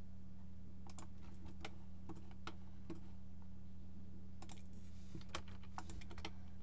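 Scattered, irregular clicks of a computer mouse and keyboard, sparse at first and coming faster in the second half, over a steady low electrical hum.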